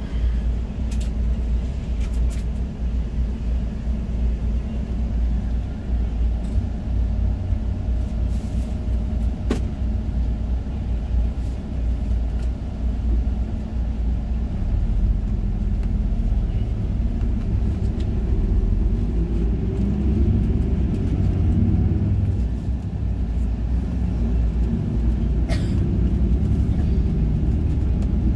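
Intercity bus heard from inside the cabin: steady low engine and road rumble as the bus pulls away from a toll booth, the engine note getting stronger from about halfway through as it gathers speed. A few light clicks and rattles from the cabin.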